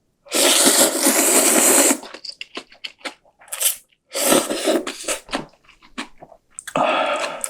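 Close-miked eating of cup ramen: a long, loud slurp of noodles, then wet chewing clicks and smacks, with further slurps partway through and near the end.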